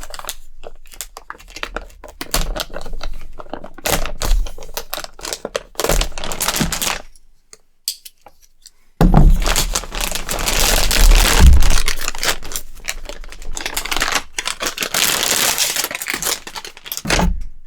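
Packaging crinkling and tearing as a graphics card's seal is broken and its wrapping opened, with scattered handling clicks and knocks. About halfway through the crinkling becomes continuous and louder, running until near the end.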